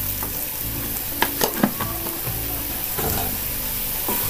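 Potato and onion pieces coated in turmeric, coriander and chilli powders sizzling in oil in a non-stick pan while being stirred with a wooden spatula, with a few sharp scrapes of the spatula on the pan. This is the sautéing stage, frying the spice powders until their raw smell goes.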